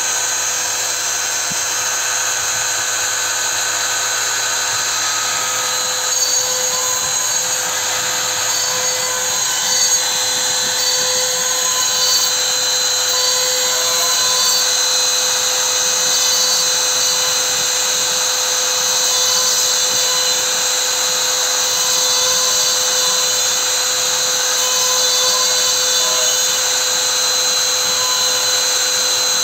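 Small CNC router spindle running at high speed with a steady whine, its fine engraving bit cutting into a clear acrylic block.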